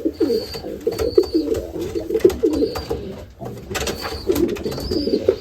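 Racing pigeons cooing in the loft: low, wavering coos one after another, with a few sharp clicks about four seconds in.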